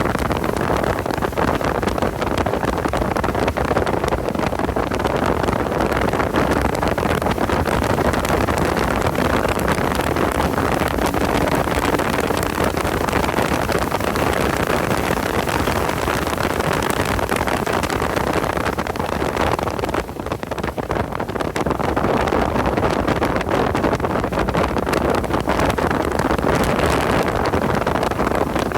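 Porsche 986 Boxster's flat-six engine running on a track lap, mixed with heavy wind buffeting the microphone. The sound eases off briefly about two-thirds of the way through, then comes back up.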